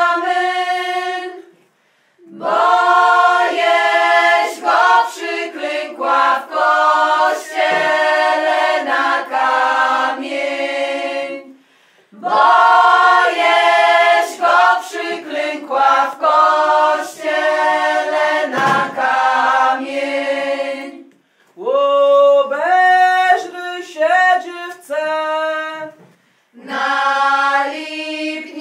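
A group of women singing an unaccompanied Orawa folk wedding song for the capping of the bride, in four long phrases with short breaths between them.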